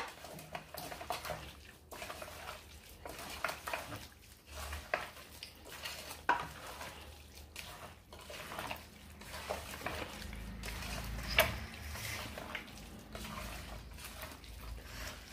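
A hand mixing raw mutton with yogurt, spices, onions and herbs inside a metal pressure cooker: wet stirring with irregular knocks and clinks against the side of the pot.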